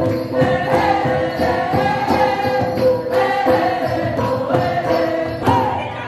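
Traditional Vietnamese gong ensemble playing, with a group of voices singing along. A steady ringing gong tone sustains under the struck gongs.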